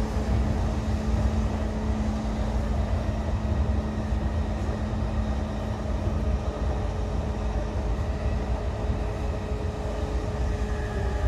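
Running noise inside a JR East E233-8000 series electric train with a Mitsubishi IGBT-VVVF inverter: a steady low rumble of wheels on track with a steady hum that fades out about two thirds of the way through. Near the end a few higher steady whines come in.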